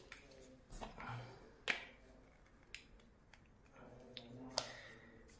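Faint, scattered clicks and taps of the parts of a phone stand being handled and fitted together, about five sharp clicks over a few seconds with light rustling between them.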